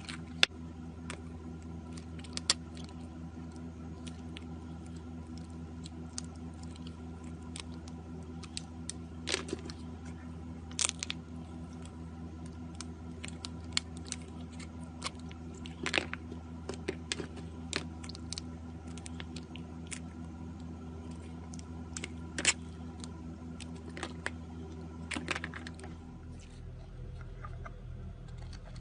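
Slime being squeezed and poked by hand, giving irregular sticky clicks, pops and small crackles, a few of them sharp and loud, over a steady low hum.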